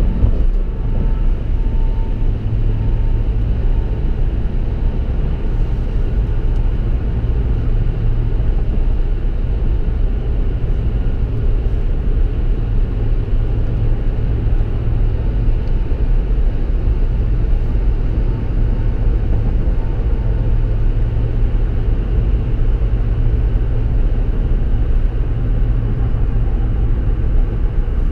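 Steady low rumble of road and engine noise inside a vehicle's cabin at highway speed.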